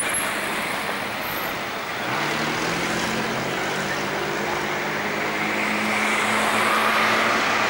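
City street traffic noise, with a vehicle engine humming steadily from about two seconds in and growing a little louder toward the end.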